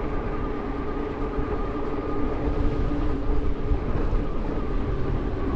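Strong wind buffeting the microphone: a steady rumble with a faint hum held underneath it.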